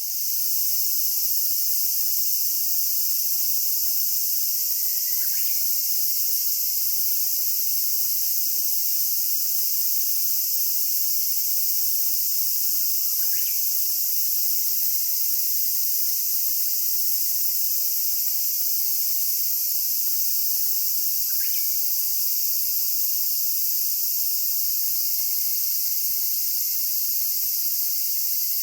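Cicadas droning steadily in a high-pitched chorus. Over it a Japanese bush warbler (uguisu) sings three short songs about eight seconds apart, each a low note sweeping up to a quick higher flourish.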